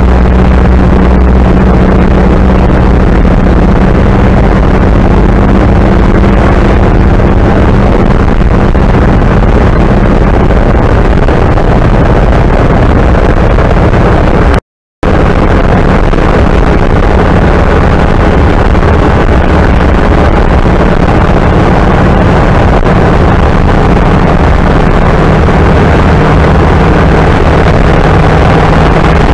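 1930 Ford Model A four-cylinder flathead engine running steadily at road speed, heard loud from inside the cab while driving, on a newly fitted FSI distributor. The sound cuts out completely for a split second about halfway through.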